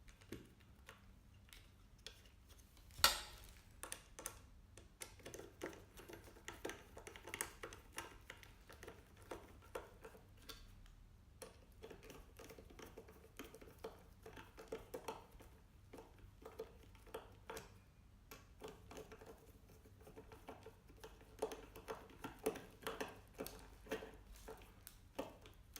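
Faint clicking and scraping of screws being tightened into a monitor's stand and base, with many small irregular ticks and one sharper click about three seconds in.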